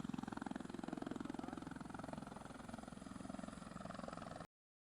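An engine running steadily with a fast, even pulse. It cuts off suddenly about four and a half seconds in.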